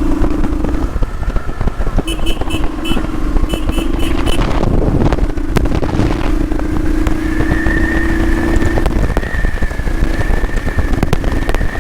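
Motorcycle engine running steadily at cruising speed, with wind and road rumble on the rider's microphone. About two seconds in comes a quick run of short, evenly spaced high beeps.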